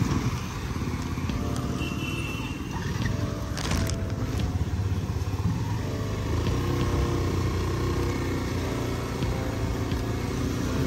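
Motorcycle engine running steadily at low speed, heard from the rider's seat, with the low rumble of surrounding traffic. A brief rush of noise comes about four seconds in.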